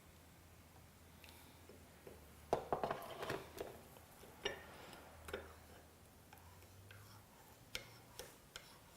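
Faint light clicks and knocks of kitchenware while tea is steeped: a quick cluster about two and a half seconds in, then a few single clicks spaced out.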